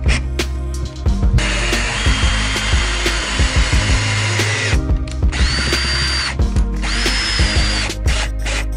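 Power drill driving screws into a plywood floor in three runs: one of about three seconds, then two short ones, each with a high motor whine that rises as the drill spins up. Background music plays underneath.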